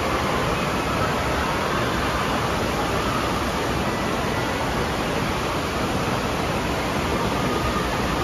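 Water rushing out of an enclosed tube slide and churning in its splash-down run-out pool, a steady, even rush.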